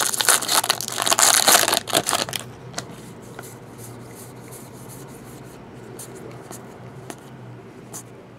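Foil trading-card pack wrapper crinkling and tearing as it is ripped open, for about two seconds. After that, only faint clicks as the stack of cards is handled.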